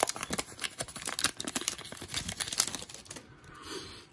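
Foil wrapper of a Panini Mosaic basketball card pack crinkling and tearing open in rapid crackles. The crackling dies down about three seconds in as the cards come out.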